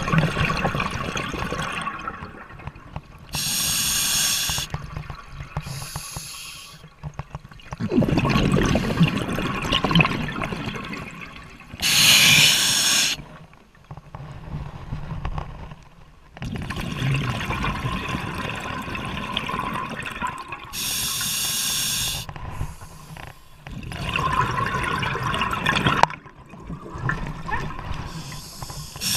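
Scuba regulator breathing underwater: short hissing inhales through the demand valve alternate with longer bubbling exhales, several breaths in a slow, even cycle.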